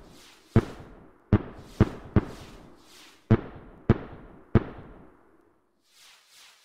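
Fireworks bursting: about seven sharp bangs in the first four and a half seconds, some in quick pairs, each trailing off. Near the end a faint hiss follows.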